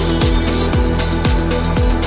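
Electronic dance music with a deep kick drum on every beat, about two a second, under sustained synth chords.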